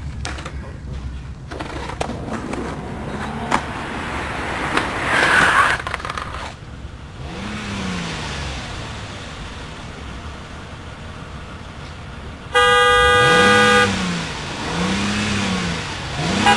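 Car horn sounding one long steady blast of just over a second, about three-quarters of the way through; it is the loudest sound. Before it, road noise swells and fades.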